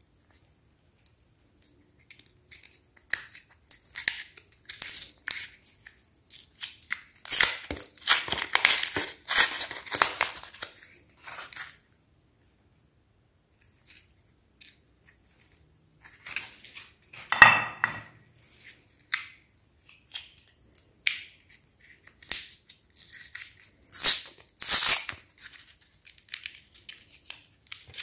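Crinkly wrappers of cone-shaped chocolate candies being peeled and torn off by hand, in irregular crackling bursts with a pause around the middle. One sharp click comes just past the halfway point.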